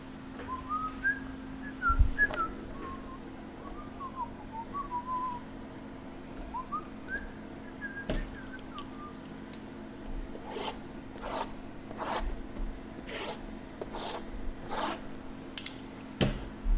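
A person whistling a wandering tune for most of the first nine seconds, with a knock about two seconds in. From about ten seconds in, a run of sharp taps and knocks as sealed cardboard card boxes are handled, over a steady low hum.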